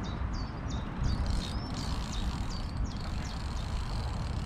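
Steady low wind rumble on the microphone, with a small bird repeating short chirps about two or three times a second.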